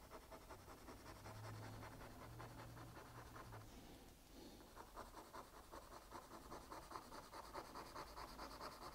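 Graphite pencil shading on drawing paper: quick, faint scratching strokes, with a short pause about four seconds in.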